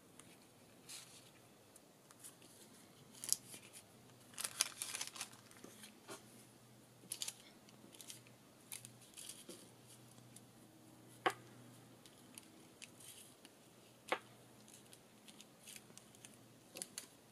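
Quiet handling sounds of jute twine and a paper tag rustling and scraping as the twine is threaded and wrapped around the tag. Scattered light clicks throughout, three of them sharper.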